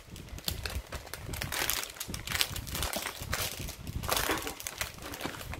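Crinkling and rustling of a rolled diamond-painting canvas and its plastic protective film being handled and unrolled, in irregular crackly bursts.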